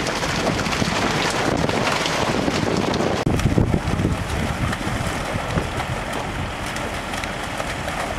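Water gushing and splashing as catfish pour from a fish-stocking truck's tank outlet into the lake, with wind buffeting the microphone. A sudden break about three seconds in, after which the splashing goes on.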